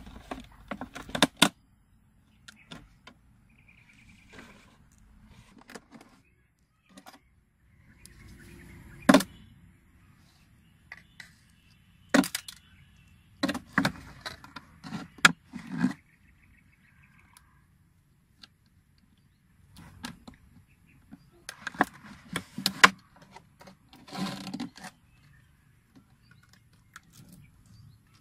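A thin plastic water bottle being handled and worked on by hand: scattered clicks, knocks and crinkles of the plastic, with quiet gaps between them.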